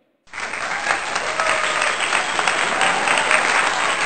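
A loud, steady wash of noise with faint voices through it, cutting in abruptly about a quarter second in after a brief silence.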